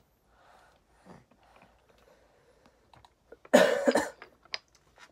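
A man coughing: a short, harsh double cough about three and a half seconds in, from a cough that is still lingering.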